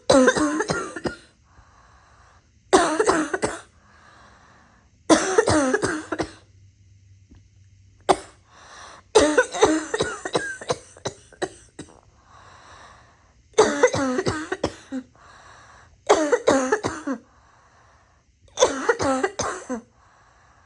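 A person coughing in repeated fits, about eight bouts a couple of seconds apart, each a quick run of several voiced coughs. Quieter breaths come in between the fits.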